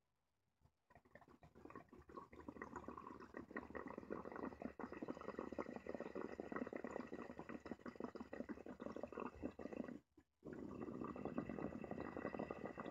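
Glass mini rig bubbling as water is pulled through its perc during a long inhaled hit. The bubbling stops briefly about ten seconds in, then starts again.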